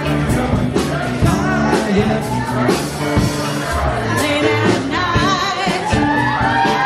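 Live rock band playing: sung vocals over electric guitars, keyboard and a drum kit keeping a steady beat.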